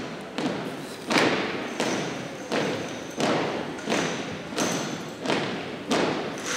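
Exhibition rifle drill team striking in unison: sharp thuds about three every two seconds, each trailing off in the echo of a large gym.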